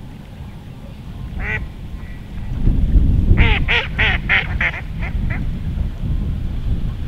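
A duck quacking: one quack about a second and a half in, then a run of about eight quacks that fade away, over a low rumble of wind on the microphone.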